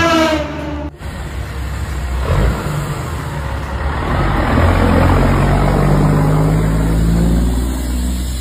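A semi truck's air horn sounds, sliding slightly down in pitch, and cuts off about a second in. Then a big-rig diesel engine runs and accelerates as the truck and its trailer pull past, its pitch rising a little midway.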